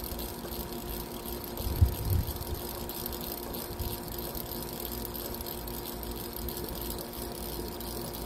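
Wind rumbling on the microphone, with a couple of stronger gusts about two seconds in, over a faint steady hum.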